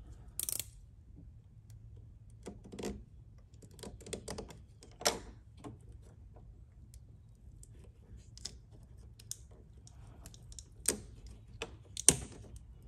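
Scattered small plastic clicks and light rattles as the melted headlight bulb socket and its wiring are handled and worked free from the mounting. The clicks come irregularly, a handful of sharper ones among fainter ticks.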